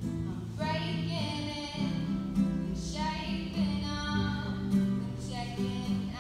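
A girl singing solo, accompanying herself on a strummed acoustic string instrument. The low chords ring on steadily under held sung phrases.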